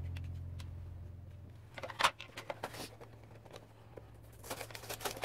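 Background guitar music fading out, then a sharp plastic click about two seconds in, followed by scattered light clicks and, near the end, busier rustling of a small figure's plastic parts and its cardboard box being handled.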